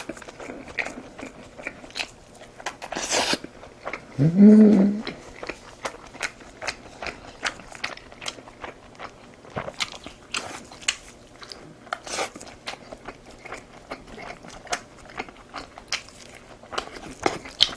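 Close-miked eating: a steady run of crunching bites and wet chewing clicks. About four seconds in comes a short rising hum from the eater, the loudest sound here.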